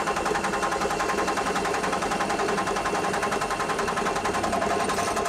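Electric drill with an 8 mm bit boring a hole through knife handle scales, running steadily with a fast, even pulse.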